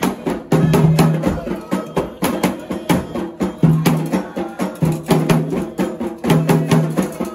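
Candomblé percussion: atabaque hand drums and a struck metal bell playing a steady, fast rhythm, with sharp strikes about three times a second over a repeating low drum tone.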